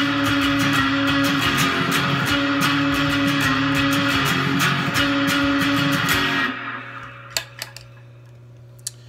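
Distorted electric guitar through an amp, played with fast picking, that stops about six and a half seconds in. After that the amp's steady low hum remains, with a few small clicks.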